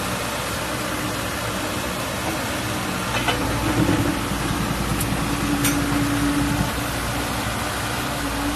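Komatsu PC56 mini excavator's diesel engine running steadily, with a few short clicks about halfway through.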